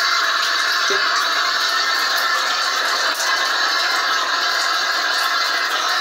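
Air rushing out of a shower spout with a steady hiss while the water supply is off, with a faint rattle in it.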